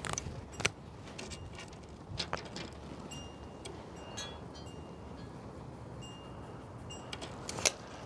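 Light clicks and knocks of a tape measure and the fiberglass mast being handled, then a Sharpie marker squeaking in several short strokes as it marks the pole. Two more sharp clicks come near the end.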